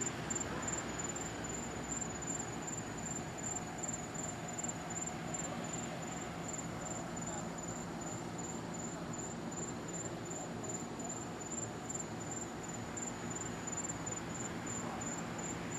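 Crickets chirping steadily, a high chirp repeating evenly several times a second, over a faint steady background hum.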